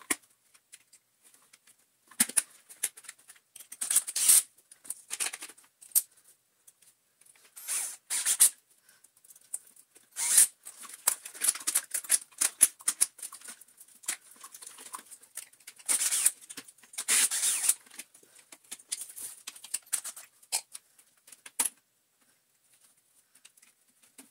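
Plastic parts of a Dyson DC40 vacuum cleaner's motor housing being handled, taken apart and refitted: irregular clicks, knocks and rattles in bursts, with short pauses between, as a small white cog is adjusted until it seats.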